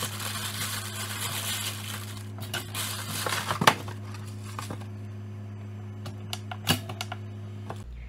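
Plastic bag of frozen waffles crinkling as it is handled inside its cardboard box, then a few sharp knocks as the box is handled, the loudest in the middle. A steady low hum runs underneath.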